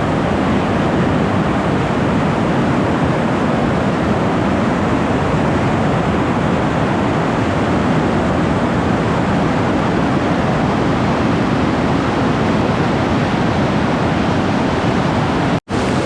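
The steady roar of Nabuyole Falls, a large waterfall on the Nzoia River, pouring water heard close by. The sound cuts out for an instant near the end.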